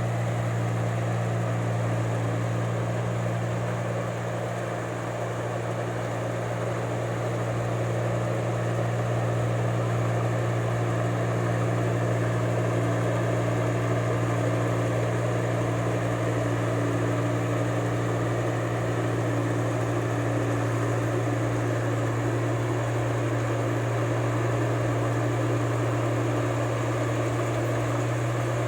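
Rice combine harvester's engine running steadily under working load, a constant low drone with only a slight dip about four seconds in.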